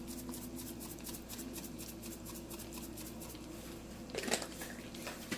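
Food sizzling as it fries in a pan: a fine, steady crackle, with a brief knock about four seconds in.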